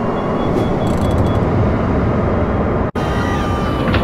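Jet airliner in flight: a steady rushing engine noise with a low rumble and a faint steady whine. A short run of quick high beeps sounds in the first second and a half, and the sound cuts out for an instant about three seconds in before carrying on.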